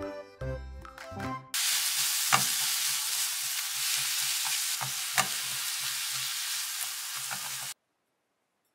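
A short music jingle, then about 1.5 seconds in, ramen noodles and sliced vegetables sizzling in a frying pan as they are stir-fried with wooden utensils. A steady sizzle with a few sharp clicks, cutting off suddenly near the end.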